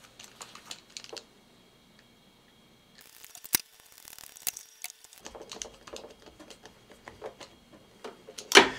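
Light, irregular clicks and ticks of a Phillips screwdriver driving small screws into a plastic plug housing, with a sharp click about three and a half seconds in and a louder one near the end.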